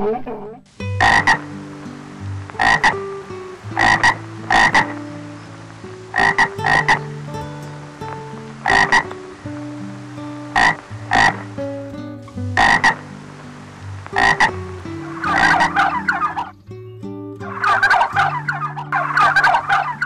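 Tree frog croaking: short sharp calls, often in pairs, every second or two, then longer runs of rapid trilled calls in the last few seconds.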